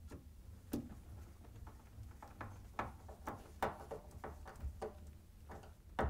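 Faint, irregular clicking of a Phillips screwdriver turning a screw by hand, up through a dishwasher's mounting bracket into a wooden countertop, over a low steady hum.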